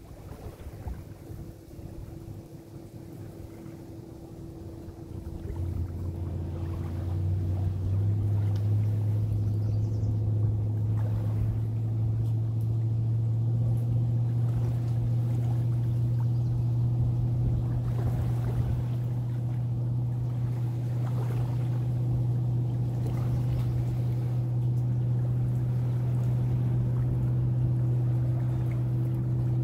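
A motorboat's engine drone on the lake: a low, steady hum that swells about five seconds in and then holds steady.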